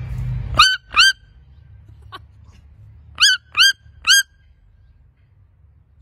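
Red-billed toucan giving loud yelping calls: two sharp yelps about half a second in, then three more in quick succession about two seconds later, each a short rise-and-fall squeal. This clear, pitched yelp is the call that marks the red-billed toucan as one of the 'yelper' toucans rather than a croaker.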